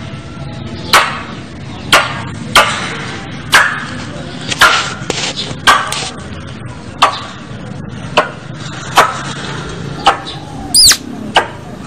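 Squirrel calling: a series of loud, sharp chipping calls about once a second, with a higher squealing call near the end, the kind of recording used as a lure to call squirrels in.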